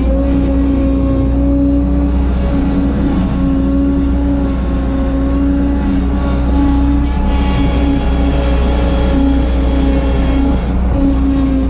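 Bobcat 743 skid steer's diesel engine running at a steady high throttle, with a brief rise in hiss about seven seconds in.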